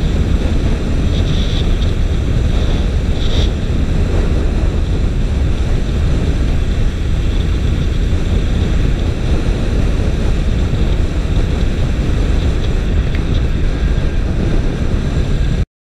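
Wind rushing over the microphone of a motorcycle being ridden along a road, with the bike's running and road noise underneath; steady, cutting off suddenly near the end.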